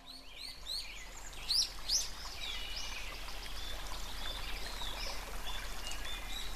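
Forest birds chirping: a quick run of rising-and-falling chirps in the first two seconds, then thinner short whistled notes, over a steady background hiss.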